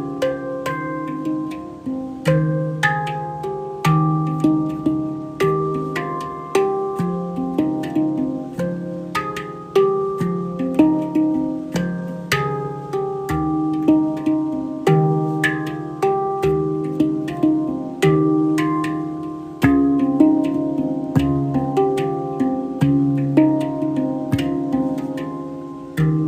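Handpan played by hand: a steady flow of struck notes, about two to three a second, each ringing out and fading as the next is struck, with deep low tones under a brighter melody.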